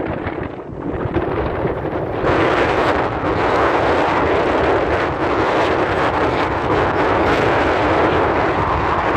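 Wind buffeting the camera's microphone: a loud, steady rushing rumble that strengthens about two seconds in.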